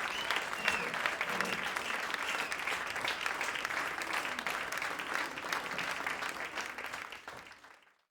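Large crowd applauding and cheering, with dense, steady clapping that fades out over the last second.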